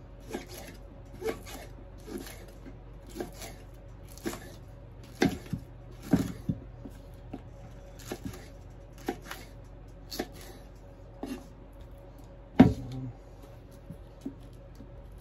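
Kitchen knife chopping green onion stalks on a wooden cutting board: single slow cuts, each a short knock of the blade on the board, about one a second, with the loudest chop near the end.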